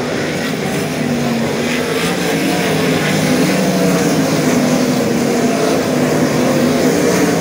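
A field of 410 sprint cars' V8 engines running together around the dirt oval: a loud, steady drone whose pitch wavers as cars pass.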